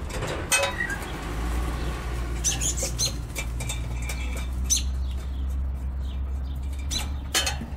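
Wing nut being turned off the steel air cleaner lid of a Chevy C/K pickup by hand, with scattered light metallic clicks and rattles of the lid. A steady low hum runs beneath.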